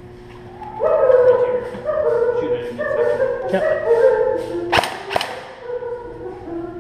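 A tune of held notes stepping up and down in pitch, like a voice singing or humming, followed about five seconds in by two sharp cracks half a second apart.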